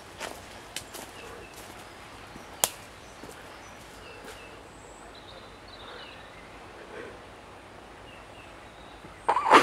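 Woodland ambience with faint, scattered bird chirps, a single sharp click about two and a half seconds in, and a brief louder noise near the end.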